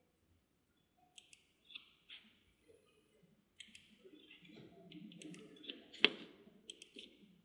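Computer mouse clicking: several quick pairs of clicks spread across a few seconds, with one sharper, louder click about six seconds in.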